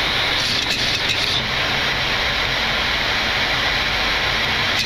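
Steady cockpit noise of a Boeing 737 on final approach in landing configuration, gear down and flaps 30: air rushing over the airframe mixed with the engines. A few faint clicks come about a second in.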